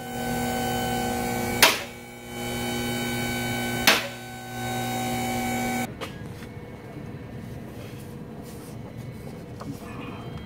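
Electric motor humming steadily at one pitch in three runs of under two seconds, each ending with a sharp click, then stopping about six seconds in; a quieter, even noise follows.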